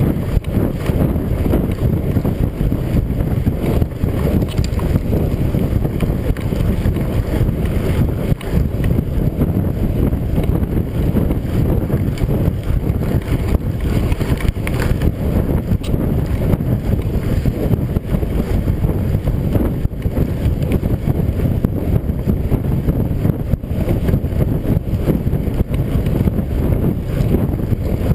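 Wind buffeting the microphone over a steady rumble of mountain-bike tyres rolling on a gravel dirt track, with frequent small rattles and knocks from the bike going over the rough surface.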